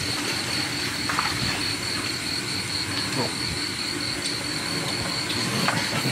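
Night chorus of crickets and other insects: a steady, high, pulsing chirr, with a few faint clicks.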